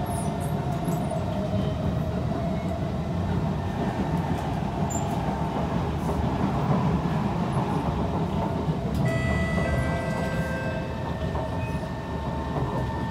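Cabin sound of a Kawasaki C151 train running on the viaduct: steady low rumble of wheels and motors on the track, swelling a little as a train passes on the opposite track around the middle. About nine seconds in, a set of steady electric whining tones sets in as the train starts braking for the next station.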